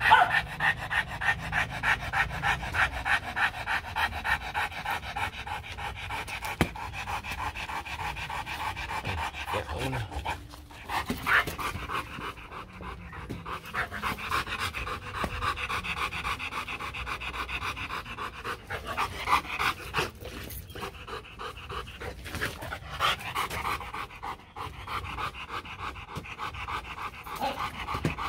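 Rottweiler panting hard through an open mouth: fast, even breaths, several a second, with a short break about ten seconds in.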